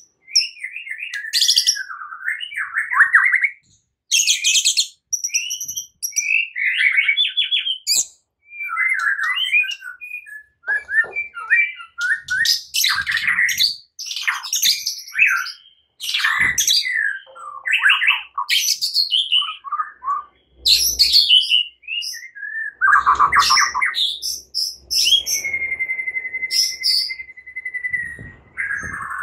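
White-rumped shama singing a varied, loud song of quick whistles, rattling trills and chattering notes, then a long held whistle near the end. It is the combative song of a young shama learning to fight.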